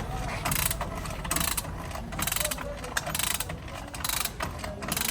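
Hand-tool work on a car body: irregular rasping, clicking strokes about once or twice a second over a low background rumble.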